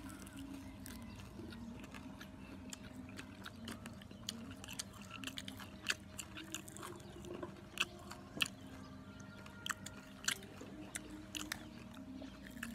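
Close chewing of crispy deep-fried baby chicks, with irregular sharp crunches and crackles as the fried skin and small bones are bitten through.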